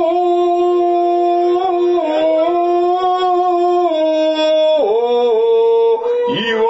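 A man chanting shigin, holding long, steady drawn-out notes near the close of the poem; the pitch steps down about five seconds in, and a new phrase starts near the end.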